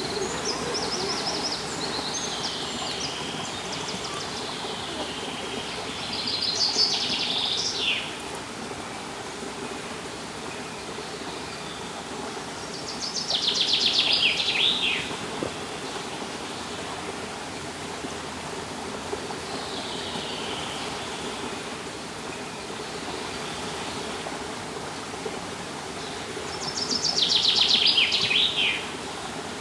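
Steady rush of flowing water, with a songbird singing a short, fast trilled song that falls in pitch, three times, and fainter bird calls between.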